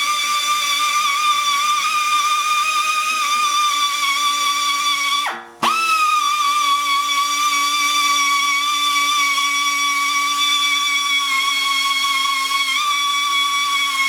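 High-speed pneumatic tool running with a steady high whine. About five seconds in it briefly winds down, then spins straight back up to speed.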